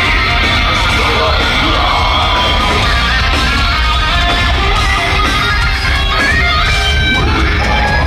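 Metalcore band playing live at full volume: distorted electric guitars over a heavy, steady low end, heard from within the crowd.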